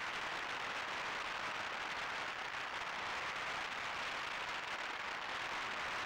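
Steady rushing hiss of air streaming past the onboard camera of a foam RC delta wing in flight, even throughout with no distinct motor tone.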